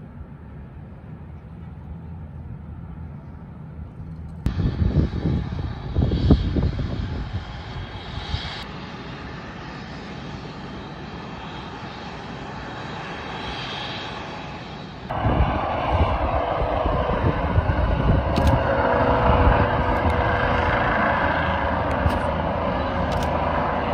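Eurocopter EC135 air ambulance helicopter running on a rooftop helipad and taking off, its turbines and rotor making a steady noise. About 15 s in the sound jumps sharply louder and a steady whine comes in as the helicopter lifts into the air.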